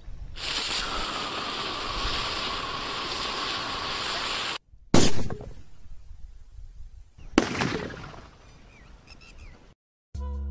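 Blocked pressure cooker hissing steadily for about four seconds, then, after a cut, bursting with a sharp bang about five seconds in. A second sharp bang follows a couple of seconds later.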